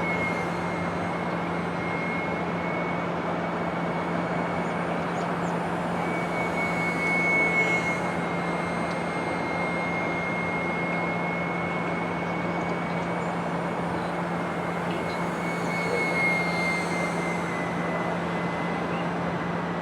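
Small electric RC plane in flight, its motor and propeller giving a thin, steady whine that wavers a little in pitch and swells twice as it passes closer, over a steady outdoor hiss.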